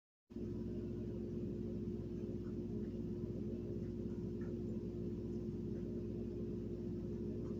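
A steady low hum with one held tone, cutting in abruptly from dead silence about a third of a second in and running on unchanged.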